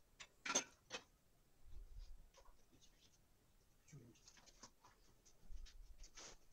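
Faint rubbing and light taps of fingers handling and lifting thin strips of cut dough off a countertop, with a few soft ticks and a couple of dull low thumps.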